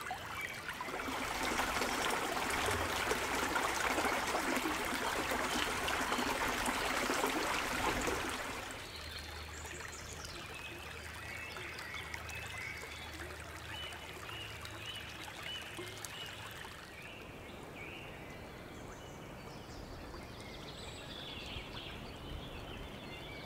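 Shallow woodland stream trickling and babbling over gravel. About eight and a half seconds in, the water sound drops away suddenly, leaving quieter woodland birdsong of short repeated chirps.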